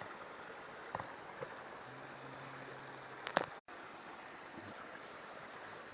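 Steady rushing outdoor background noise, with a few light clicks and one sharper knock a little past the middle, then a brief dropout.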